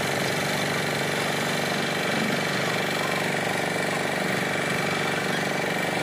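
Concrete mixer's engine running steadily with a fine, rapid chugging, its drum turning while it unloads concrete.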